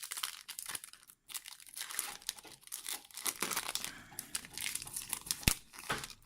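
Foil booster-pack wrapper crinkling and tearing as a trading-card pack is opened, with a sharp click about five and a half seconds in.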